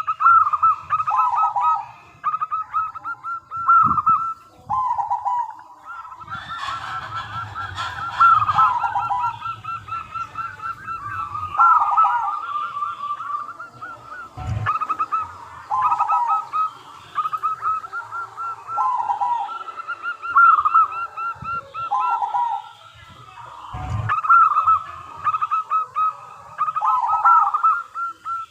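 Zebra dove (perkutut) cooing: short, rapidly pulsed coo phrases repeated every second or two, with a few dull low thumps in between.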